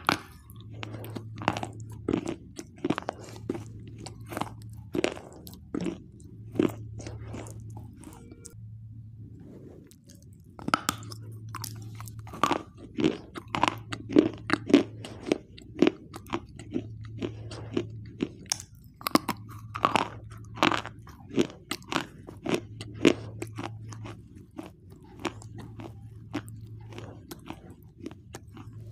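Crunching and chewing as a person bites pieces off a hard, chalky white bar and chews them: many sharp, dry crunches, with a short lull about a third of the way through.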